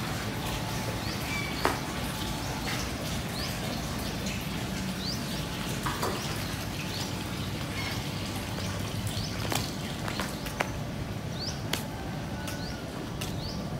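Small birds chirping outdoors with short, quick rising calls every second or two, over a steady low hum, with a few sharp clicks scattered through.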